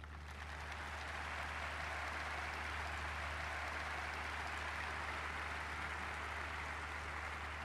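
A large audience applauding, swelling in the first second and then holding steady.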